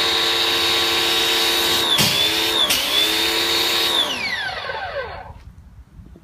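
The Force 1800 electric pressure washer's motor and pump running with a steady whine under the hiss of a foam cannon spraying, dipping briefly in pitch twice. About four seconds in the spraying stops and the motor winds down, its pitch falling until it goes quiet.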